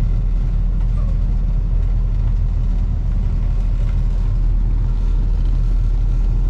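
Pickup truck engine running, a steady low drone heard from inside the cab while the truck's feeder dumps cattle feed.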